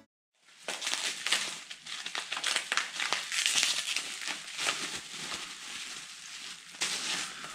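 Plastic bubble wrap being handled and unwrapped by hand: a busy crinkling full of small sharp crackles, starting about half a second in.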